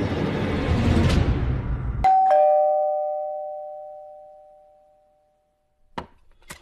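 Two-note "ding-dong" doorbell chime, a higher note then a lower one, both ringing out and fading over about three seconds. Before it, background music cuts off abruptly about two seconds in. Two sharp clicks come near the end.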